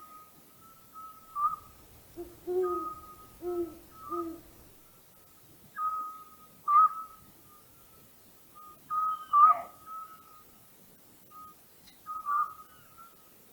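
Owl calls at night: short whistled notes repeated every second or two, with three lower, deeper hoots about two to four seconds in.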